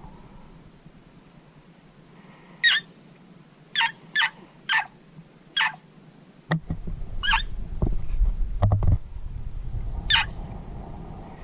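Jack Russell terrier barking in short, high-pitched yips, about seven at irregular gaps. Faint birdsong sounds throughout, and a low rumble sets in about halfway.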